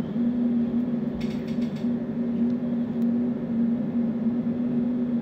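Laser back-glass removal machine running on an iPhone SE 2020 housing: a steady mechanical hum, with a short run of clicks about a second in.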